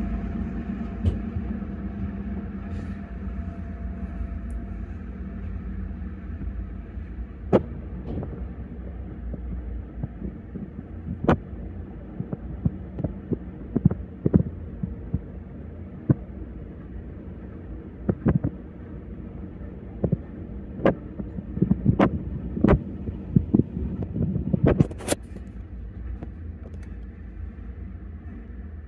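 Freight cars rolling past on the rails: a steady low rumble with sharp, irregular clacks and bangs from the wheels and cars, coming thicker in the second half.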